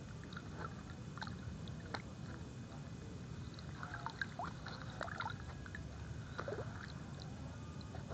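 Faint small splashes, drips and trickles of water, with scattered light clicks, as hands work a fish into a floating plastic container.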